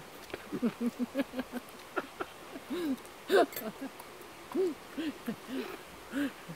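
A person chuckling with the mouth closed: a quick run of short hummed 'hm-hm' sounds, then a few longer ones, with one louder voiced laugh about three seconds in.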